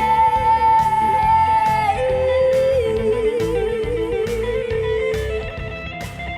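Instrumental band passage: an electric guitar plays a lead line of long held notes that bend and waver in pitch, over bass and drums keeping a steady beat.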